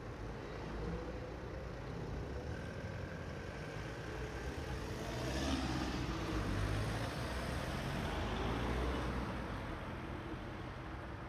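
Road traffic driving past, a truck and vans among it: engine rumble and tyre noise that grows louder through the middle and eases off near the end.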